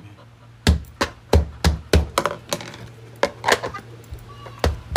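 Hands tapping and slapping on a glass tabletop in a quick, uneven run of sharp knocks, about three a second.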